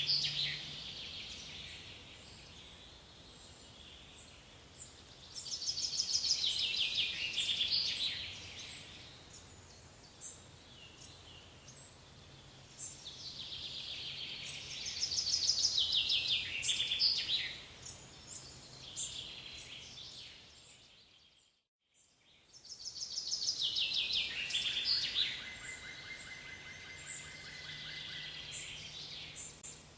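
A songbird repeats a descending trilled song phrase of about two to three seconds, three times, with short high chirps from other birds in between. The sound cuts out completely for a moment about two thirds of the way through.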